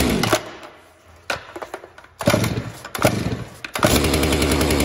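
Stihl MS 462 C two-stroke chainsaw being pull-started with the choke set: a few hard pulls on the starter cord, each with a short burst of engine noise, then it catches a little before the end and runs steadily.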